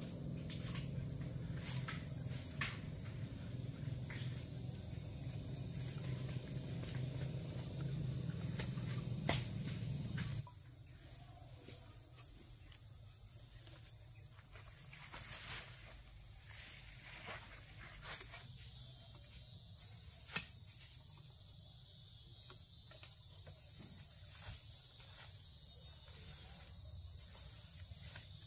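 Steady high-pitched insect chorus, with scattered clicks and rustles. A low hum underneath cuts off suddenly about ten seconds in.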